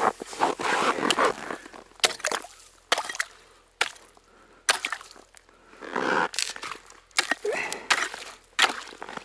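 Tip-up line being hauled up by hand out of an ice hole with a burbot on it: irregular rustling and scraping with many sharp clicks and some water sloshing.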